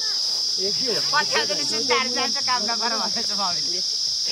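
A steady, high-pitched insect chorus shrilling without pause. Over it, people's voices call out for a few seconds in the middle, with no clear words.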